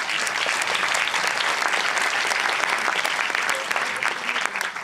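Audience applauding steadily after a speech, beginning to taper off near the end.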